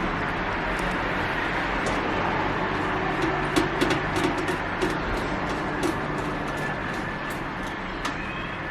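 Scattered small clicks and taps of computer parts being handled while fitting a hard drive into a PC case, over a steady hiss and low hum.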